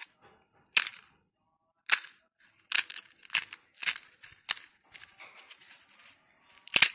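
Fried gol gappa (pani puri) shells crushed in the hand, cracking in a series of sharp crunchy snaps about one every half second to a second, with a loud crack near the end. The sound is the test of crispness: the shells are crisp and crunchy.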